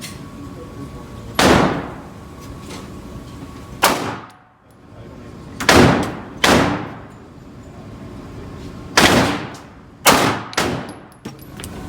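Glock 17 Gen 4 9mm pistol fired seven times at a slow, uneven pace, each shot followed by a short echo.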